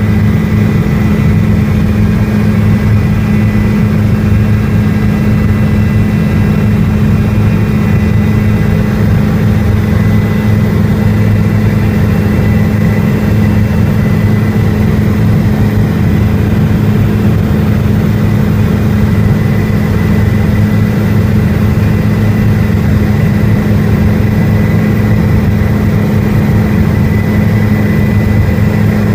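Helicopter in flight: a loud, steady drone of engine and rotor with a faint high whine, unchanging throughout.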